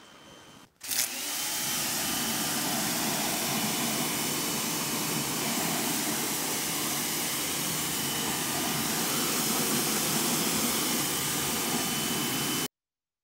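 Pressure washer spray from a Griot's Garage Boss short gun hitting a car wheel and tyre: a steady, loud hiss of water with a faint steady whine in it. It starts suddenly about a second in and cuts off abruptly near the end.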